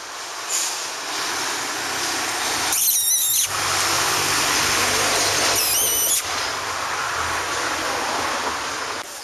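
Steady rushing street noise, with two brief high, wavering squeals about three seconds and about six seconds in.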